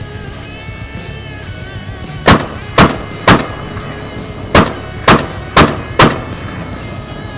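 AR-15 rifle firing seven quick semi-automatic shots, a string of three and then a string of four, each about half a second apart. Background guitar music plays underneath.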